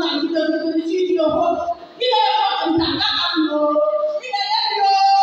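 People singing, mostly women's voices, in sustained phrases with a short pause about two seconds in.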